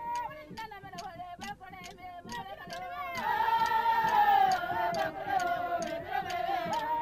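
Women singing a mourning song together, several voices holding and bending long wailing notes that grow fuller and louder about halfway through. The song has a clicking beat about two or three times a second.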